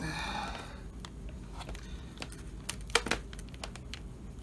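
Scattered small plastic clicks and creaks as a laptop keyboard is pried and worked loose by hand, with the loudest clicks about three seconds in.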